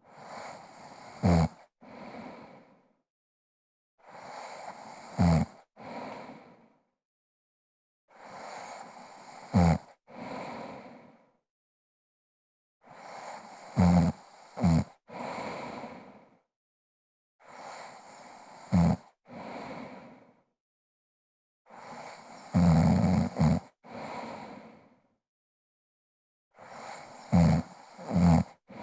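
A woman snoring heavily in deep sleep. Seven slow breath cycles come about every four seconds, each a loud, low snore followed by a heavy breath.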